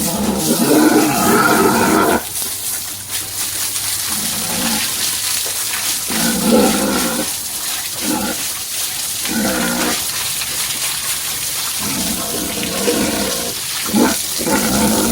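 Pigs calling over and over in grunts and squeals; the longest call, about two seconds, comes at the start, and shorter ones follow every second or two. Under them runs a steady hiss of running water.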